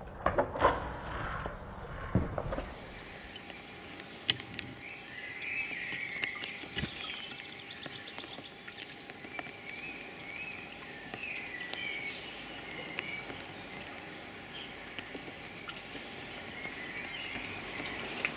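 Water pattering and splashing onto the ground for the first couple of seconds, then songbirds singing in short warbling phrases, with a faint steady hum and the odd click underneath.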